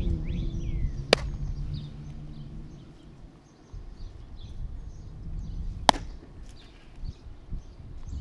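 A baseball smacking into a catcher's leather mitt twice, two sharp pops about five seconds apart, the first about a second in.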